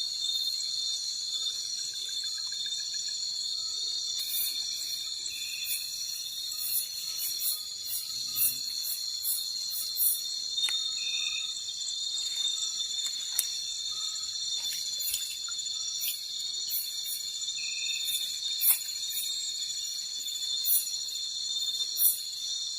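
Night-time insect chorus: a steady high shrilling of crickets with many short, sharp chirps and clicks scattered over it.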